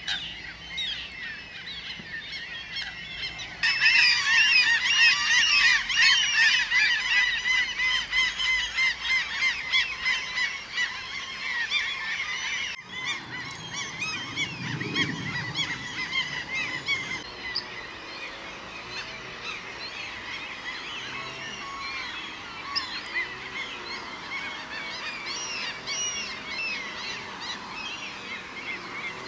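A colony of common gulls calling, with many high overlapping calls at once. The chorus gets suddenly louder about four seconds in, breaks off briefly about thirteen seconds in, then goes on a little more softly.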